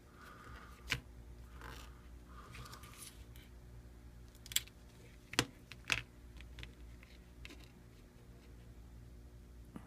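A few sharp clicks and taps, about four, from a smartphone and small repair tools being handled at the bench, over a low steady hum.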